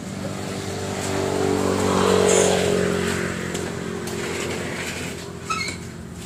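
A motor running with a steady hum that swells about two seconds in and then eases. There is a brief sharp clink near the end.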